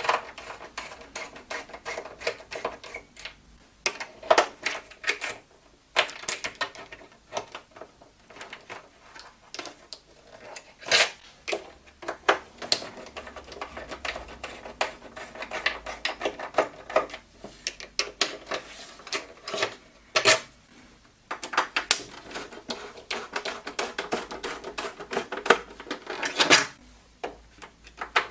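Small screwdriver unscrewing screws from a PlayStation 3's plastic case: a steady run of irregular clicks, ticks and scrapes from the tip in the screw heads and the hard plastic shell being handled, with a few louder single clacks.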